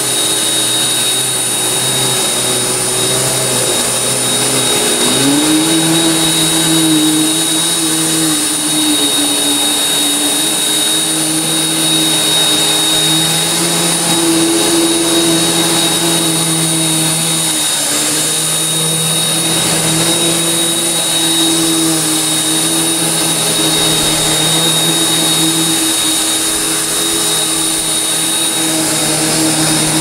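A 5-horsepower shop vac and a gutted Bissell upright's brush-roll motor running together, vacuuming carpet through a hose: a loud steady whine with high whistling tones over a lower hum. The hum rises in pitch about five seconds in and dips briefly now and then.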